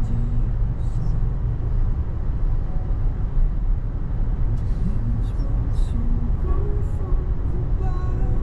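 Steady road and engine noise of a car driving at speed, heard from inside the cabin, with faint snatches of voice over it.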